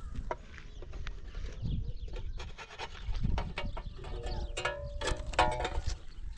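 Dry sticks being handled on the ground, giving scattered sharp clicks and knocks, with two short animal calls, typical of goats, at about four and a half and five and a half seconds in.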